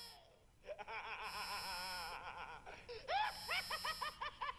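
Maniacal Joker-style cackle: a long wavering laugh that breaks about three seconds in into a fast run of short 'ha-ha-ha' bursts, about four a second.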